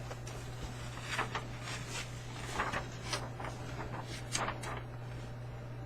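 Paper poster being handled: a series of short crinkles and rustles between about one and five seconds in, over a steady low electrical hum.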